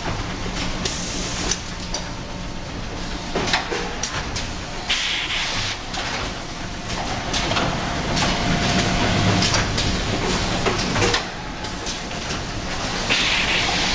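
Automated carton packing line running: conveyors and pick-and-place packing heads give a steady low hum with irregular clicks and clatter, and two short bursts of hiss, about five seconds in and near the end.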